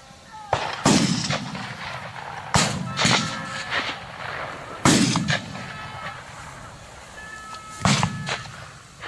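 Rifle shots on a driven red deer hunt: about four loud shots spread a couple of seconds apart, with a couple of fainter ones among them, each trailing off in a low rumbling echo.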